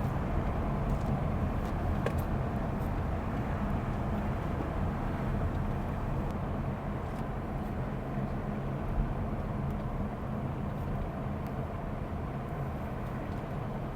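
Car driving along a road: a steady rumble of engine and tyre noise.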